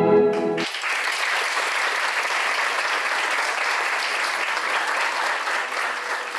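Music stops abruptly about half a second in, and an audience applauds steadily for the rest of the time.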